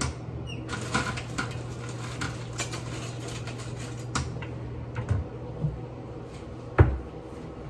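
Kitchen clatter: cookware and utensils clinking and knocking every second or so, with one loud clank near the end, over a low steady hum.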